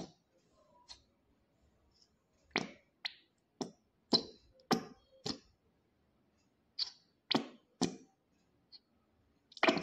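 About a dozen sharp plastic clicks and taps at irregular intervals, from a plastic spoon and a container of aloe vera gel being handled while a spoonful of gel is scooped out.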